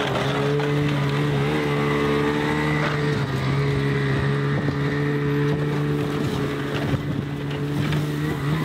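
Snowmobile engine running steadily, with only slight changes in pitch, as it tows a loaded sled over bare ground.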